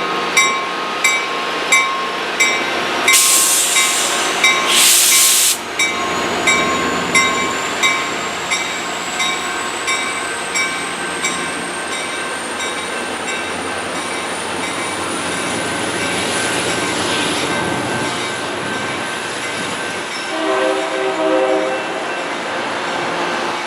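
A train rolling past, with a ringing ding repeating about every two-thirds of a second that fades out about halfway through. There are two short hisses early on, a thin high wheel squeal that slowly rises in pitch, and a brief horn sound near the end.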